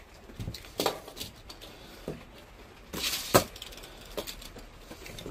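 Handling noises from a steel tape measure worked over a cardboard box: scattered light clicks and knocks, with a short scrape about three seconds in that ends in a sharp click, the loudest sound here.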